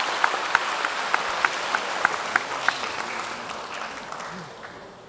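Audience applauding, with individual sharp claps standing out, fading away over the last two seconds or so.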